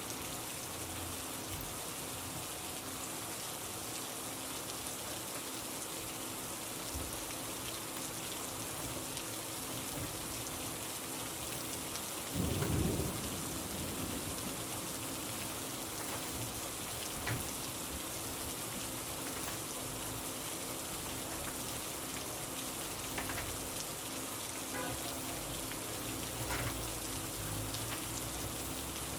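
Steady rain falling, an even hiss, with one brief low rumble about twelve seconds in and a few faint ticks later.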